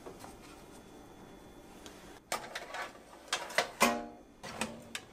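Faint handling of bread slices on a wire oven rack, then from about two seconds in a few short plucked, guitar-like music notes.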